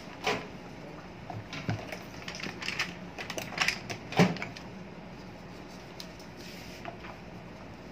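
Irregular clicks and knocks of an electric fan motor with its blade being handled and set down on a workbench, the loudest knock about four seconds in.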